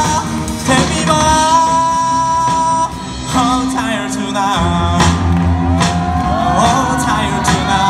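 Live rock band playing, with guitars, bass and drums and a male voice singing long held notes; the bass and drums come in much harder about halfway through.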